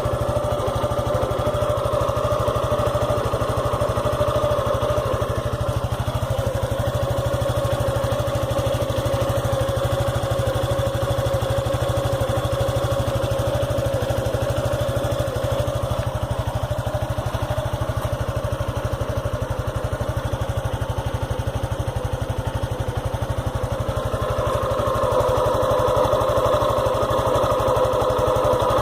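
Suzuki Gixxer SF 150's single-cylinder four-stroke engine idling steadily, a little louder over the last few seconds.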